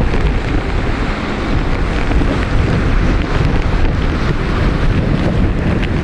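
Storm wind blasting across the microphone in loud, rumbling gusts, over rough water breaking and surging against shoreline rocks and pilings.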